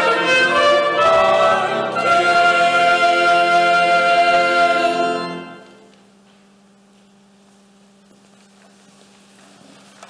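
Church choir singing the closing chords of a carol, holding a final chord that ends about halfway through and fades out. A quiet stretch follows, with a faint low steady hum.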